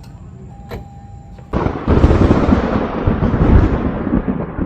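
A sudden loud, thunder-like rumble starts about a second and a half in and slowly dies away.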